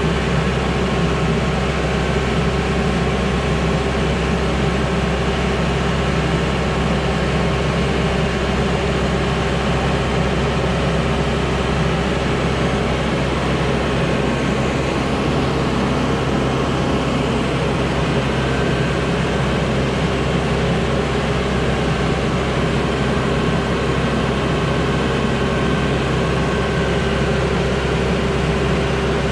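A boatyard travel lift's engine and hydraulics running steadily as it lifts a sailboat out of the water, a constant mechanical drone with a few held tones.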